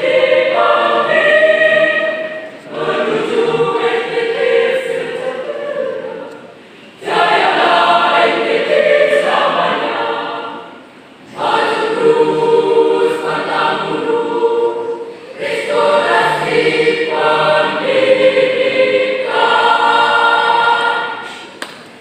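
Mixed school choir (soprano, alto, tenor and bass) singing the closing phrases of a song in sustained chords, with short breath breaks between phrases; the last chord dies away near the end.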